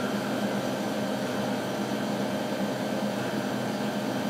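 Steady mechanical hum with fan-like hiss from an idling refrigerated drinks vending machine, its cooling fan and compressor running.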